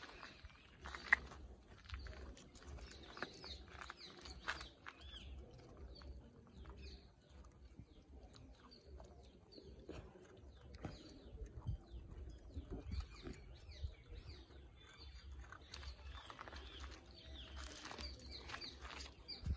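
Faint clicks from puppies chewing dry food off a plate. Birds chirp throughout in short, quick calls.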